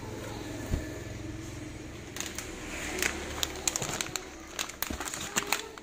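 Plastic packets of dried food crinkling and crackling as they are lifted and shifted inside a cardboard box, a quick run of sharp crackles from about two seconds in, with one soft thump just under a second in.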